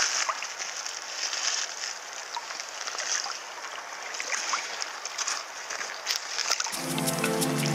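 Shallow river water lapping and splashing lightly as a smallmouth bass is let go at the water's edge, with small scattered ticks of water. Music starts near the end.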